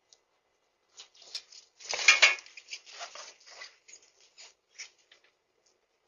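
Bicycle clattering and rattling as it is handled and moved, a quick run of metallic clinks and knocks that starts about a second in, is loudest around two seconds and thins out to a few ticks.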